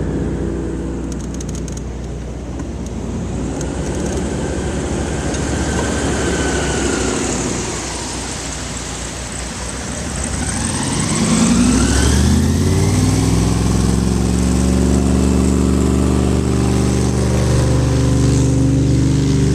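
Airboat engine and propeller approaching and passing close. About eleven seconds in the engine note climbs and grows louder, then holds steady and loud.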